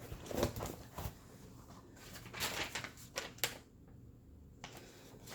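Rustling and crinkling as a large rolled diamond painting canvas is unrolled and handled, with a few sharper crackles in the middle.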